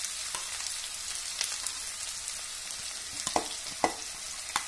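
Chopped onions sizzling as they are tipped into hot ghee in a cooking pot, with a few sharp knocks in the second half as the last pieces are knocked out of the plastic bowl.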